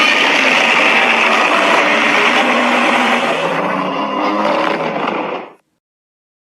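A harsh, grinding kaiju monster sound effect, a dense roar-like noise held at full loudness for about five seconds before it dies away.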